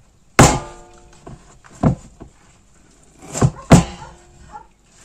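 A plastic cheese mould knocked and handled while a pressed wheel of brynza is freed from it: about four knocks, the first and the last ringing briefly, then a few light taps near the end.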